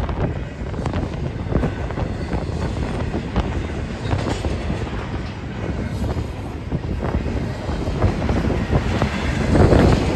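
BNSF double-stack intermodal freight train rolling past, its wheels clicking irregularly over the rail joints under a steady rumble, getting louder near the end.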